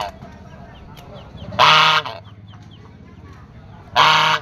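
Domestic Chinese goose honking: two loud, harsh honks about two seconds apart, each about half a second long, with faint high chirps between them.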